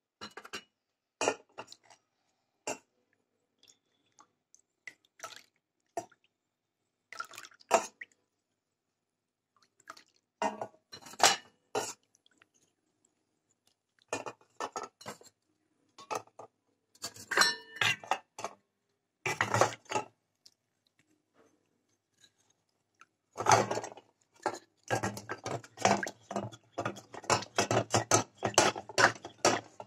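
Small clay pots and clay pieces knocking and clinking against a steel bowl as they are handled and rinsed in water, with drips and splashes. The knocks come singly at first, and near the end they turn into a dense, continuous clatter.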